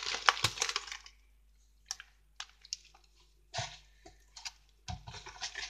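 Kitchen handling noise: a rustling burst at the start, a few light clicks in the middle, and more rustling near the end as a fleece sleeve brushes close against the microphone.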